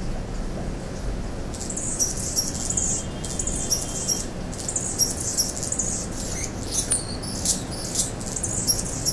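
Male Anna's hummingbird singing from a perch: a thin, scratchy, squeaky song in short repeated phrases with brief gaps, starting about a second and a half in. His song carries two extra high-pitched squeaky notes. A steady low background rumble lies underneath.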